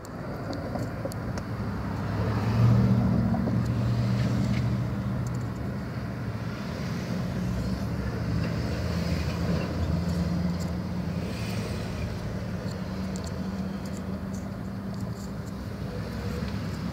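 Steady low hum, louder a couple of seconds in and easing off.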